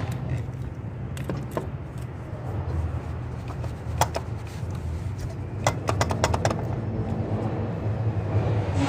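Hand tools clicking and clinking on metal while a replacement starter motor is bolted into the engine, including a quick run of about seven clicks past the middle, over a steady low machine hum.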